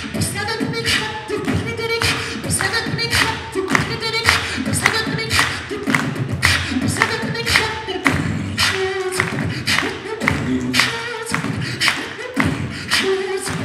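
Human beatboxing into a handheld microphone: a steady beat of sharp, snare-like hits over pitched vocal bass notes.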